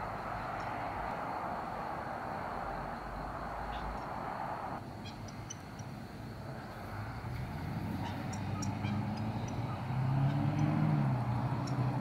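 A motor vehicle's engine hum that comes in about halfway through and grows louder near the end. Before it, a steady hiss cuts off suddenly, and faint short high chirps are scattered throughout.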